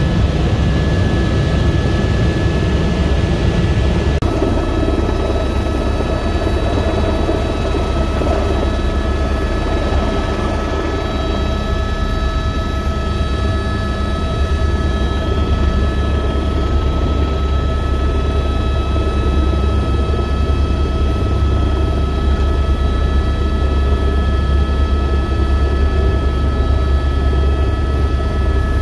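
Cabin noise of an Airbus AS350B3e helicopter: a steady low rotor drone under a steady whine from its Arriel 2D turboshaft engine. About four seconds in the sound shifts from flight to the helicopter running on the ground after landing, with the engine and rotor still turning.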